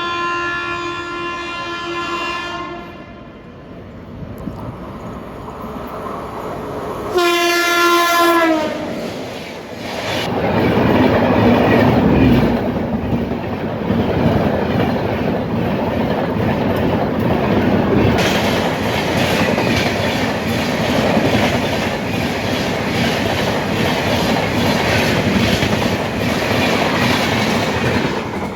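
Indian Railways train horn sounding twice, a long blast that stops about three seconds in and a shorter one about seven seconds in that drops in pitch at its end. The train then passes at speed: a loud steady rush from the coaches with a rapid clatter of wheels over the rail joints.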